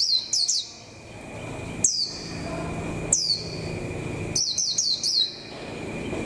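Caged white-eye calling: short, high chirps that each slide quickly downward in pitch. A quick run of them at the start, single calls about two and three seconds in, and another fast run of about five near the five-second mark.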